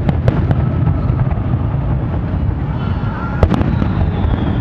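Aerial fireworks shells bursting at a distance: three sharp bangs in quick succession at the start and two more about three and a half seconds in, over a steady low background rumble. A faint high whistle falls slowly in pitch near the end.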